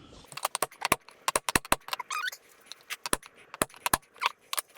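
Small metal parts and tools clinking against each other, an irregular run of sharp clicks, with a brief warbling squeak about two seconds in.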